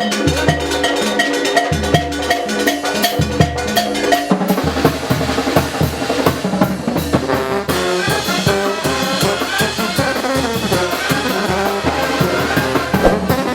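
Oaxacan brass band playing a muerteada carnival rhythm live: trumpets and trombones over a steady drum beat, the playing changing character about four and a half seconds in.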